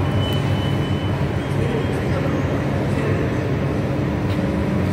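Steady drone and hum of an underground metro station's ambience, with a thin high whine for a second or so near the start.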